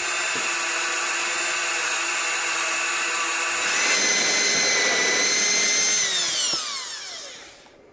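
Electric drill running at a steady high whine while it bores through a car door hinge into the body's sheet metal. About six seconds in the motor winds down, its pitch falling away until it stops.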